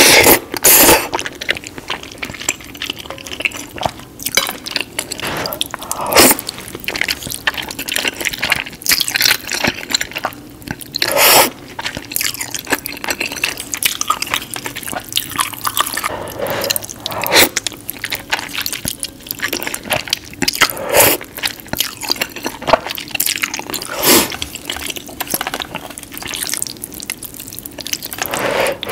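Close-miked slurping of spicy ramen noodles: loud wet slurps every few seconds, with quieter wet chewing between.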